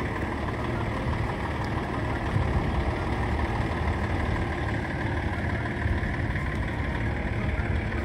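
Steady, uneven low rumble of wind buffeting the phone's microphone.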